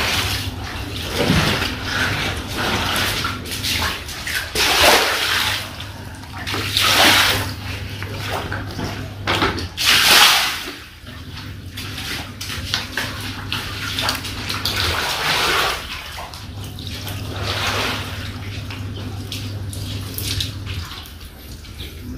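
Shallow floodwater on a concrete floor splashing and sloshing as people wade through it, in irregular surges every few seconds, over a low steady hum.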